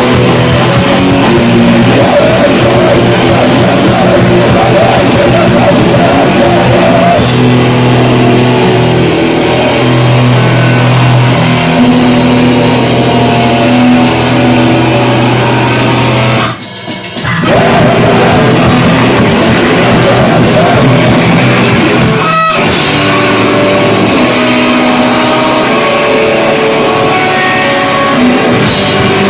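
Rock band playing loudly live, with guitar and drum kit. The music breaks off briefly about seventeen seconds in, then comes back in.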